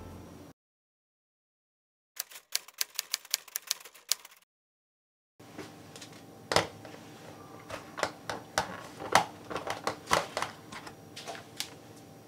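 A quick run of typewriter-style key clicks lasting about two seconds, set between stretches of dead silence. From about five seconds in, food containers are handled on a kitchen counter, with scattered knocks and taps as a plastic lid is pulled off an aluminium food tin.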